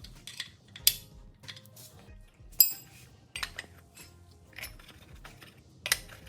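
A scatter of sharp metallic clinks and clatters as metal objects are handled and set down, the loudest a ringing clink about two and a half seconds in. Quiet background music runs underneath.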